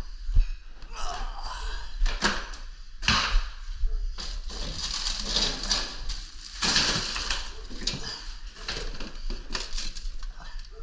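Containers and bottles knocking and clattering with rustling as a refrigerator is emptied out by hand: irregular sharp knocks, a few of them louder, with handling noise in between.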